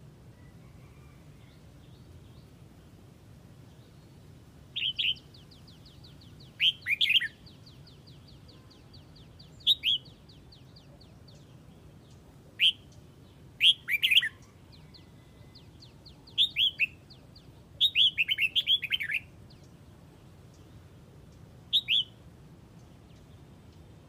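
Red-whiskered bulbul flock-calling: short, loud, falling whistled notes, singly or in quick runs of two to four every couple of seconds, with a fast string of them near the end.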